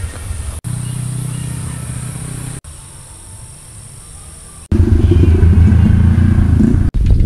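Several short spliced stretches of road noise, with a motor vehicle engine running past. The loudest, heaviest rumble comes about two-thirds of the way in.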